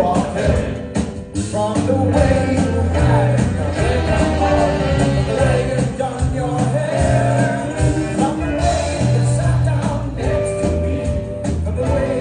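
Rock song with singing over a band: a steady beat, bass line and guitar.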